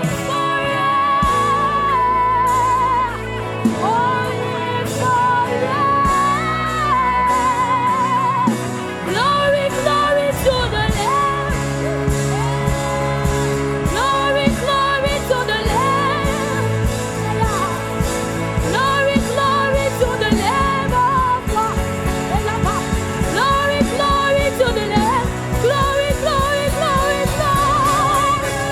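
Live gospel worship music: one voice singing long, gliding lines with a wavering vibrato over sustained chords, with a steady drum beat coming in about nine seconds in.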